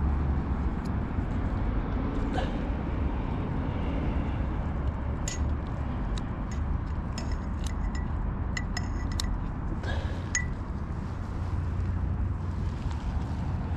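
Wind buffeting the microphone as a steady low rumble. Through it runs a scatter of small, sharp metallic clicks and clinks, most of them in the middle few seconds, from fishing tackle being handled.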